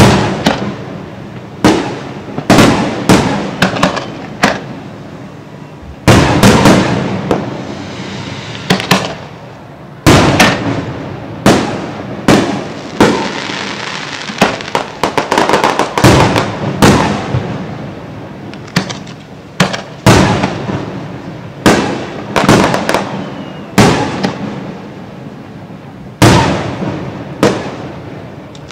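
A fireworks display: aerial shells bursting in quick succession, each a sharp boom with an echoing tail. Longer spells of dense crackling come in between some of the bursts.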